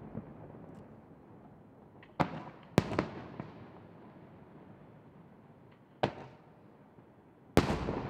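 Aerial firework shells bursting over the sea: a series of sharp bangs, two close together a couple of seconds in, another about six seconds in and the loudest near the end, each followed by a long rolling echo.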